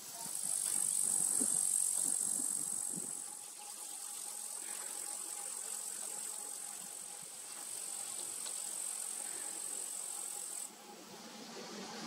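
Insects chirring in the grass: a steady high-pitched hiss, louder in the first few seconds, that cuts off suddenly near the end.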